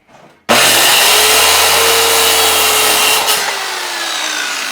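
Electric power saw cutting through a wooden board, starting abruptly about half a second in and running loud. Its motor pitch sags slowly under the load, and the sound eases a little near the end.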